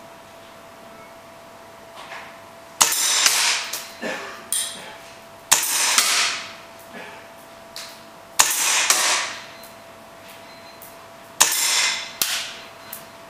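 Tokyo Marui Foliage Warrior gas blowback airsoft pistol firing four single shots about three seconds apart. Each is a sharp crack followed by a rushing sound that fades over about a second, with a few fainter knocks after it.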